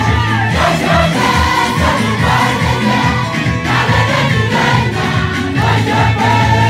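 Congregation singing a gospel song together as a choir over loud music with a steady bass line and beat, with crowd noise mixed in.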